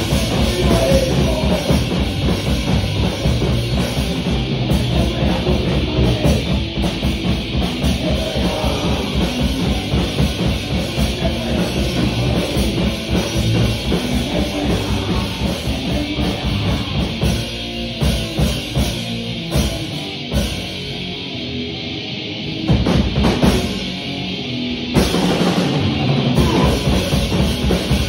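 Punk band playing live: fast drumming on a full drum kit with distorted bass and guitar. About two-thirds of the way through, the band drops back to a sparser, quieter break for several seconds, and the full band comes back in a few seconds before the end.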